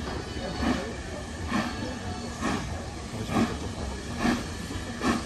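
Steam locomotive working slowly, its exhaust beats coming evenly, a little under one a second, over a steady hiss.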